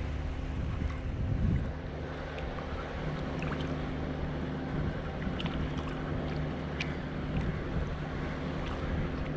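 Low steady engine hum under wind noise on the microphone, with a few light clicks about halfway through.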